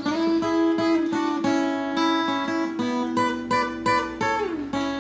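Intro music: acoustic guitar plucking and strumming, with notes that slide in pitch.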